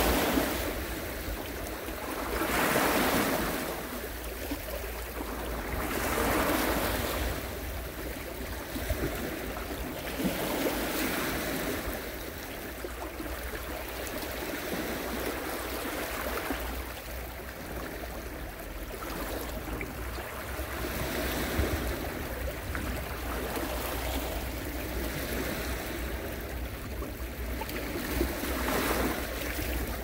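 Sea waves breaking and washing ashore, the surf swelling every three to four seconds in the first ten seconds, then a more even wash with one more surge near the end, over a steady low rumble.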